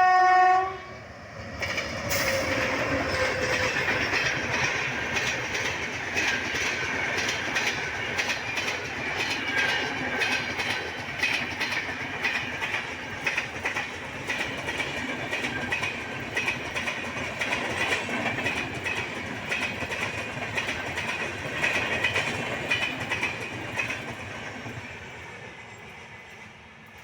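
Rajdhani Express passenger train passing at full speed: its horn cuts off under a second in, then the coaches rush by with a rapid clickety-clack of wheels over rail joints. The sound fades near the end as the train goes away.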